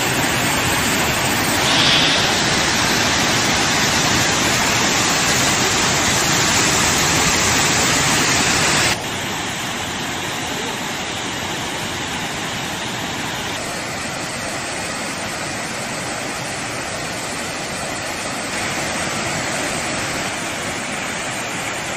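Steady rushing water, loud and even, that cuts abruptly to a quieter level about nine seconds in.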